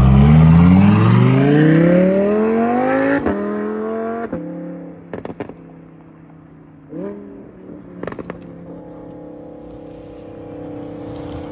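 Audi R8 engine pulling away under hard acceleration, its pitch climbing steeply, with a shift about three seconds in and a second short climb before it backs off to a quieter steady drone.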